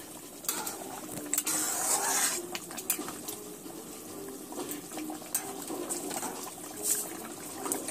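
Metal spoon clinking and scraping against a metal kadai while stirring a thick, simmering curry, with scattered sharp clicks and a brief wet swish about two seconds in.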